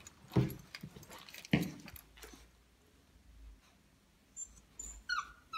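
Beagle puppy whimpering in a few short, high squeaks near the end, after two sharp knocks early on.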